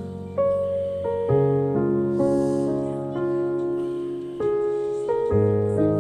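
Background piano music: a slow melody of single notes over held low notes.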